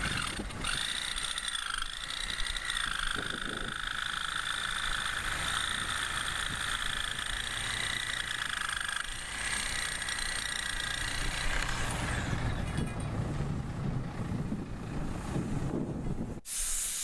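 A saw cutting through the curb pipe, giving a steady high whine that stops about twelve seconds in and gives way to a rougher hiss.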